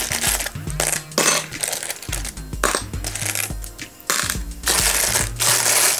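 Loose plastic LEGO tiles clattering and clinking as hands rummage through and spread them in a tray, with background music underneath.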